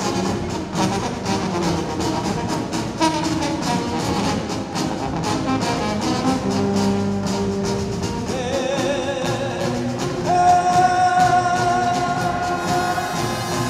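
Romanian brass band playing live: saxophones, tuba, trumpets and drums. A long high note is held over the band in the last few seconds.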